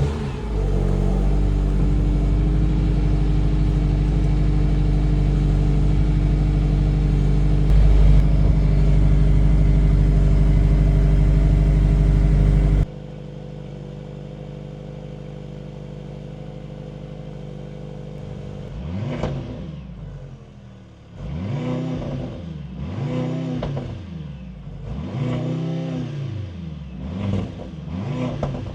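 2024 Mercedes-AMG C63 S E Performance's turbocharged 2.0-litre four-cylinder engine starting with a sharp burst, then idling loudly and steadily. About halfway through the idle drops suddenly to a quieter level. Near the end the engine is revved in a series of quick blips, each rising and falling in pitch.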